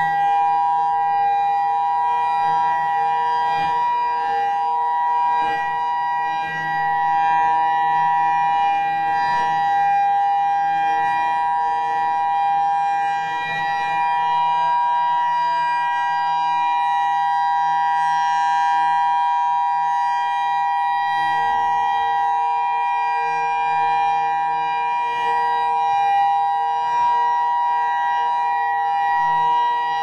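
Federal Signal EOWS 612 electronic siren sounding its steady Alert signal: two loud, steady tones held together at a fixed pitch, swelling and fading slightly as the six-horn array rotates.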